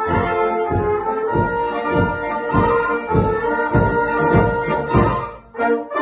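Brass band playing a Bohemian-style polka: tubas mark a steady oom-pah bass beat about two strokes a second under held brass chords and melody. The music breaks off briefly near the end, then comes back in.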